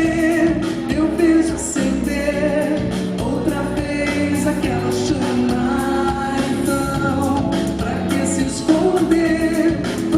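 Live concert music: a band playing a pop song with sung vocals over it.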